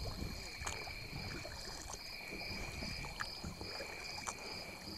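Kayak paddle strokes and water lapping against the hull as the kayak is paddled against the current, with a low wind rumble on the microphone.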